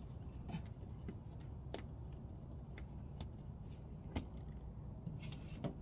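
Scattered light clicks and knocks from a rooftop tent being handled on top of an SUV, with a sharper knock about four seconds in and a quick run of clicks near the end.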